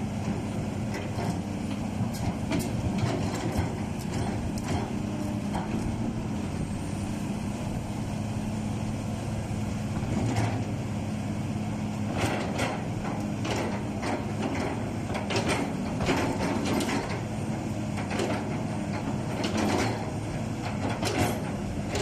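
SANY SY235H 23.5-ton excavator running with a steady low engine hum, with repeated short knocks and clanks over it, coming thicker from about halfway through.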